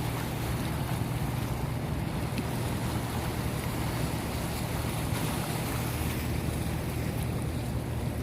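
Steady rush of water with a constant low drone underneath.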